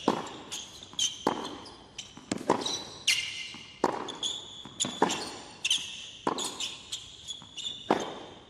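Tennis rally on a hard court, opening with the serve: racquet strikes and ball bounces about every second. Short high squeaks follow several of the shots, typical of sneakers on the court surface.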